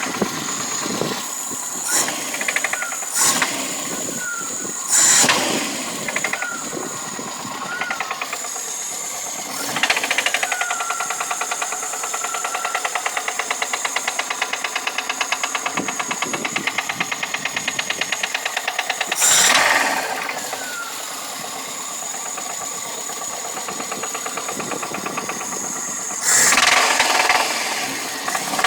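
VAZ-2108 (Lada Samara) four-cylinder petrol engine running, with a fast, even knocking in time with the engine; the cause of the knock is unknown. Its speed rises briefly several times, each surge followed by a falling whine as it settles back.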